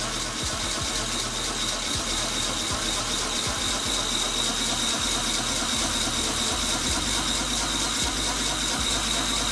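Electric drill turning a piston ring filer's abrasive wheel, grinding the end of a piston ring to set its end gap. It runs steadily with a high grinding whine and grows slightly louder through the stretch.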